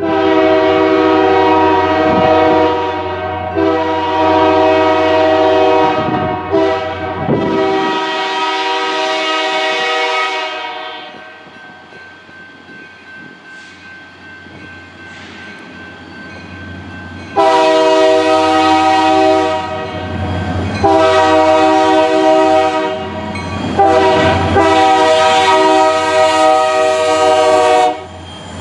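Freight locomotive's multi-chime air horn sounding for a grade crossing: three blasts, the last one long, then a quieter lull of about six seconds, then three more blasts as the train reaches the crossing.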